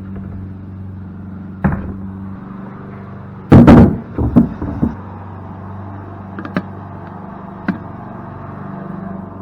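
Knocks and clanks of heavy cast-aluminium pump parts being handled and set down during disassembly. One knock comes near the start, then a loud cluster of clanks about three and a half seconds in, then a couple of light clicks, all over a steady low hum.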